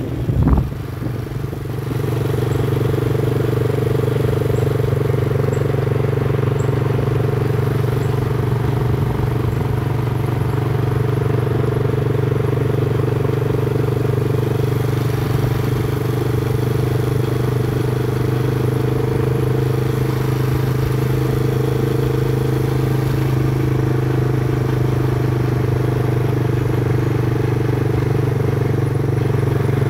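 Small motorcycle engine running at a steady speed while being ridden, a constant hum that barely changes, with a couple of thumps in the first second.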